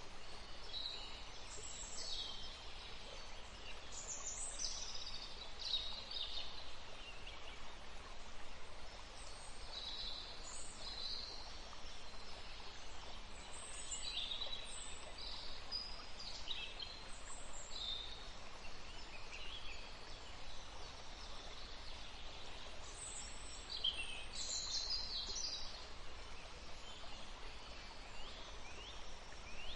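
Several wild songbirds chirping and singing, short high calls and trills overlapping one another, over a steady background hiss.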